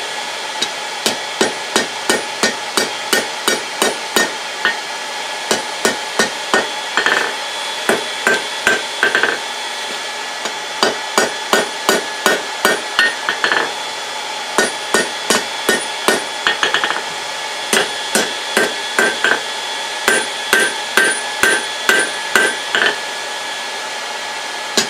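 A small hand hammer striking a red-hot steel bar on an anvil in runs of blows, about two to three a second, with short pauses between runs; a ringing tone carries on between the blows. The hot tip is being forged into a pointed, diamond-shaped leaf.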